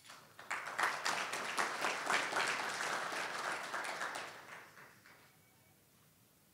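Audience applauding, many hands clapping at once; it starts about half a second in and dies away by about five seconds.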